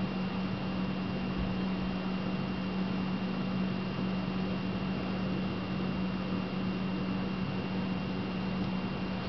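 Steady low hum with hiss and a faint constant high whine, with no distinct events: background room tone.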